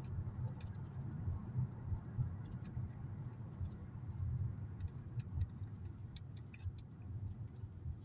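Car cabin noise while driving: a steady low rumble of engine and tyres on the road, with scattered light ticks and clicks.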